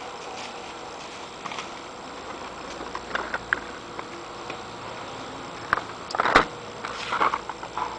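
Plastic blister packaging being handled: scattered crinkles and clicks, with one loud knock a little after six seconds in and a flurry of crackling after it.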